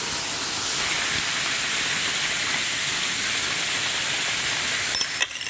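Waterfall: falling water splashing onto rock as a steady, loud rushing hiss, which drops away abruptly about five seconds in.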